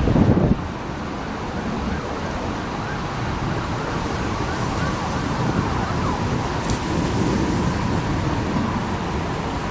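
Wind rumbling on the microphone beside an open railway line, with a strong gust in the first half second. From about two seconds in, a faint steady whine sits above the wind noise.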